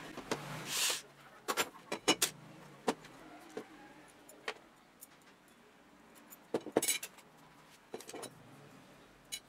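Loose steel bicycle spokes clinking and jingling against each other and the wheel hub as they are pulled out of a child's bike wheel: a string of light metallic clicks, busiest about two seconds in and again near seven seconds. A short rushing noise comes right at the start.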